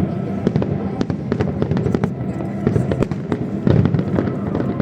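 Aerial fireworks display going off: a dense run of bangs and crackles several times a second over a continuous low rumble of bursts.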